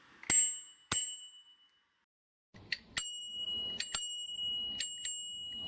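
TOOPRE alloy bicycle bell ringing: two sharp dings that ring on with a clear high tone. After a brief dead gap comes a quicker run of about half a dozen dings over faint background noise.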